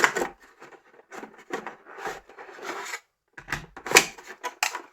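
Hands taking a mobile phone out of its retail box: cardboard and packaging rubbing and scraping, with a few sharp clicks about three and a half to four and a half seconds in.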